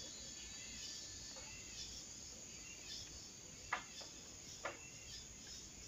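Faint, steady high-pitched insect chirping in woodland. Two short sharp chirps or clicks sound about a second apart midway through.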